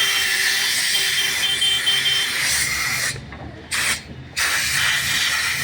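A steady high-pressure spray hissing, stopping twice briefly a little past halfway and then starting again.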